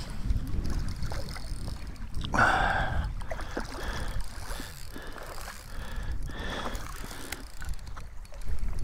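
Wind buffeting the microphone, with a hooked trout splashing and thrashing at the surface as it is played in close to shore, the loudest splash about two and a half seconds in and a weaker one later.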